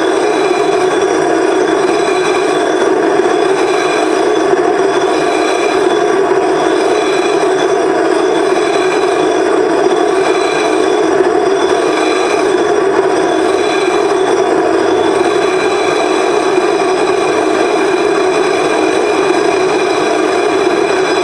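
Mirror-grinding machine hogging out the curve of a 16-inch telescope mirror: a steady, loud grinding scrape of the tool on the glass, with a faint sweep that comes round about every second and a half as the stroke repeats.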